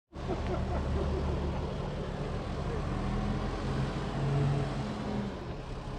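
Diesel engine of an HSM forestry tractor running steadily as the machine drives and works its crane, swelling in level with a steady hum from about three seconds in and easing off again near the end.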